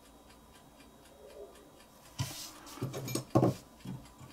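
Faint steady ticking about four times a second, then from about halfway through, close handling of a small metal butane lighter: sharp clicks, knocks and scrapes as it is turned in the fingers.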